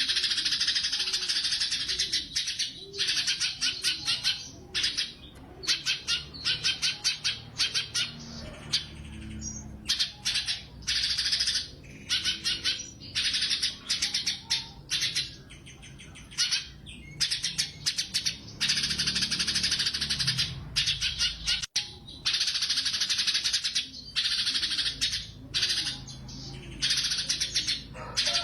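Cucak cungkok singing nonstop in rapid, high-pitched chattering bursts, phrase after phrase with only brief gaps: the bird is in full song ('gacor'), delivering its fast 'tembakan' volleys.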